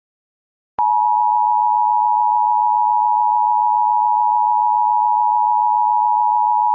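Emergency Alert System attention signal: a loud, steady two-note alert tone that starts about a second in after silence. It is the tone that precedes an emergency warning message.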